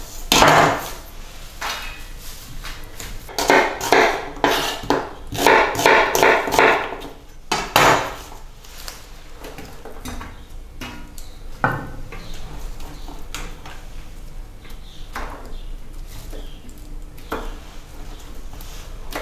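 Chef's knife chopping fresh herbs on a wooden cutting board: a quick run of knocks through the first several seconds, then only occasional single light knocks and clicks.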